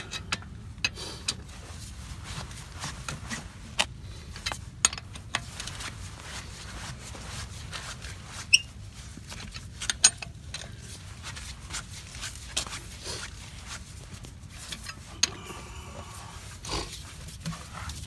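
Lug bolts being threaded and turned in by hand on a spare wheel: scattered light metallic clicks and taps, a few sharper ones about eight and ten seconds in, over a steady low hum.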